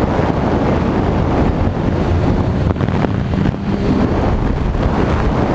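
Wind buffeting the microphone of a GoPro in its frame mount: a loud, steady low rumble of wind noise with a rapid flutter.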